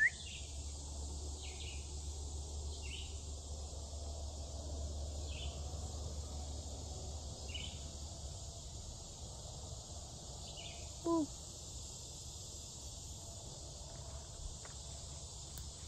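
Steady high buzzing of an insect chorus, with a bird repeating a short high chirp every second or two. A single brief, louder, lower call comes about eleven seconds in.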